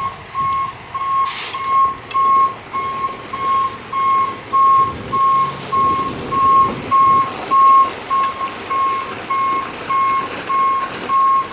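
Truck's reversing alarm beeping steadily, nearly two beeps a second, over the truck's engine running as it backs up to spread a load of stone.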